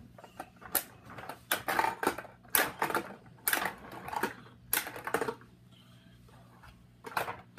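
Hard plastic Imaginext toys clicking and knocking as they are handled and set down on a wooden floor, in irregular clusters of sharp clicks that pause about two-thirds of the way through and pick up again near the end.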